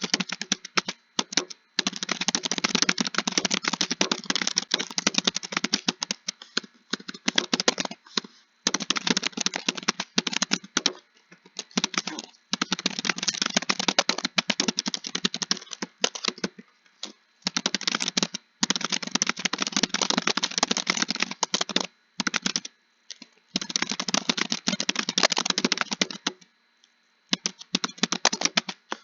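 Fast typing on a computer keyboard: rapid key clicks in runs of one to a few seconds, broken by short pauses.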